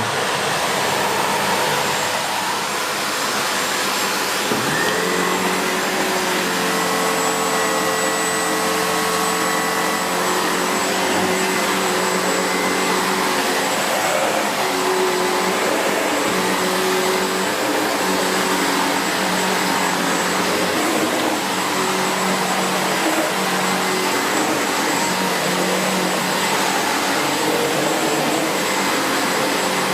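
SEBO Felix bagged upright vacuum cleaner running steadily over floor tiles, set to its lowest height setting with the brush roll still spinning. About four and a half seconds in, a steady whine joins the motor noise and holds.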